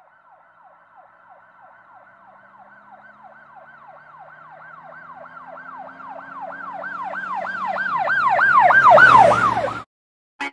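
Emergency-vehicle siren sounding a fast yelp, about three sweeps a second, growing steadily louder as it approaches with the vehicle's engine underneath, then cutting off suddenly near the end.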